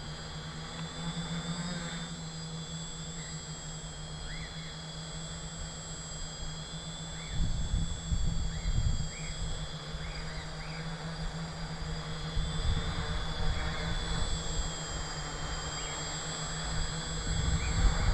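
Tricopter's electric motors and propellers whirring steadily in flight. Wind buffets the microphone in gusts, loudest about seven seconds in and again near the end.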